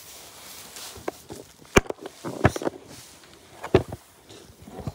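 Footsteps through straw bedding with rustling, and a handful of sharp, irregular knocks.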